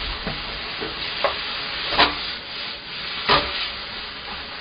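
Udon noodles, seafood and vegetables sizzling in a frying pan as a wooden spatula stirs and tosses them, with a few spatula knocks and scrapes against the pan, the loudest about two and three seconds in.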